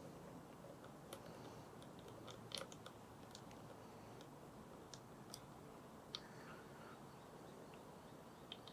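Near silence: faint room tone with a few scattered faint clicks and taps.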